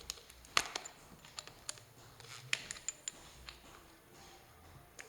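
Scattered light clicks and taps, about a dozen and unevenly spaced, from tightening an impact drill's chuck with its chuck key so the bit won't come loose.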